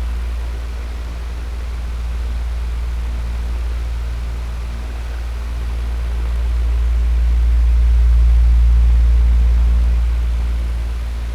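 Electric fan running steadily: a low motor hum under a rush of moving air. Its loudness swells and fades slowly over several seconds.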